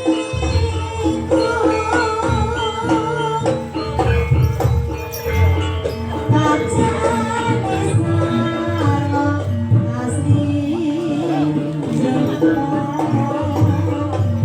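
Live Javanese jaranan music from a gamelan-style ensemble: drums and jingling percussion under a wavering melody line, playing continuously.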